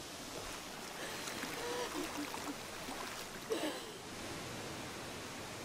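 A woman's faint sobs and whimpers over a steady rush of water. About four seconds in the crying stops and only the even rushing of a waterfall goes on.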